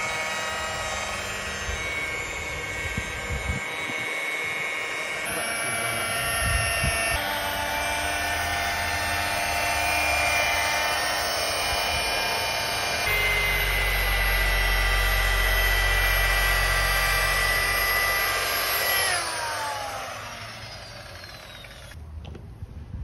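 Electric rotary polisher with a foam waffle pad buffing boat gel coat with Meguiar's polish: a steady motor whine whose pitch shifts in steps several times as the speed is changed. Near the end the motor is switched off and winds down, its pitch gliding down as it fades.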